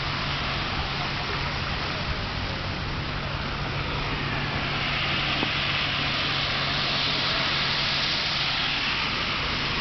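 Heavy typhoon rain pouring down on a flooded road, a steady rushing hiss that swells about halfway through.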